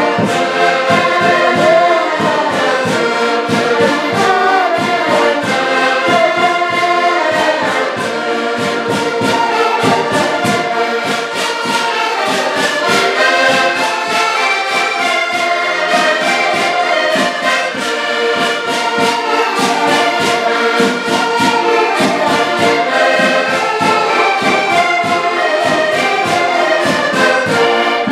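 An ensemble of accordions playing a lively folk tune together, many reeds sounding at once, with a hand-held drum keeping a steady beat.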